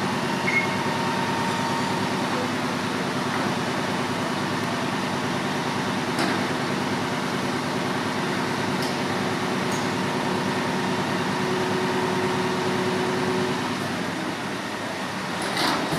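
Fire engine diesel engines running steadily at the fireground, a constant drone, with a few short knocks near the end.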